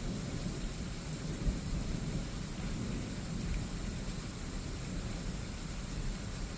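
Thunder rumbling low and steadily in a thunderstorm, over a faint even hiss of rain, with one brief louder jolt about a second and a half in.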